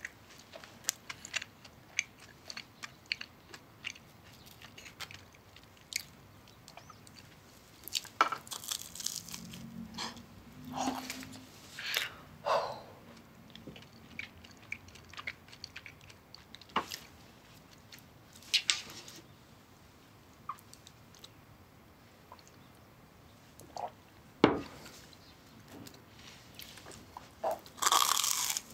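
Close-up chewing of crisp toast: scattered small crunches and mouth clicks throughout, with louder crunchy bites now and then and a big crunching bite into the crust near the end. One sharp knock stands out a few seconds before the end.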